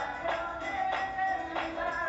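Church praise singing with a tambourine struck on the beat, about one stroke every two-thirds of a second, under held notes.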